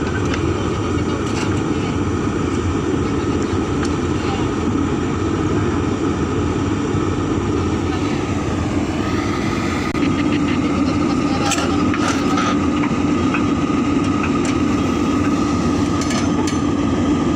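Hydraulic excavator's diesel engine running steadily with the hydraulics working. The pitch dips and rises briefly about eight seconds in, and the sound gets louder about ten seconds in.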